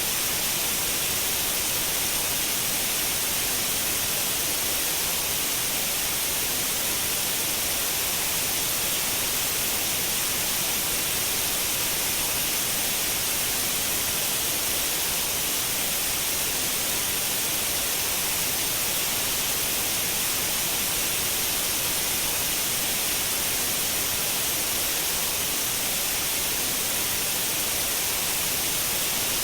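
Steady, continuous white noise: a bright, even hiss that never changes.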